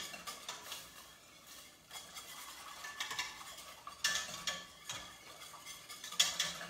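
Wire whisk stirring a flour-thickened white sauce in a stainless steel pot, metal scraping and clinking against the pot, with louder strokes about four and six seconds in.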